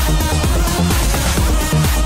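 Electronic dance music from a DJ mix, with a steady repeating beat, a heavy bass and synth notes.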